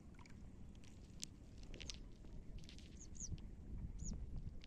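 Faint outdoor sound: a steady low rumble with scattered short clicks and knocks, and a few short, high, downward-sliding bird chirps about three and four seconds in.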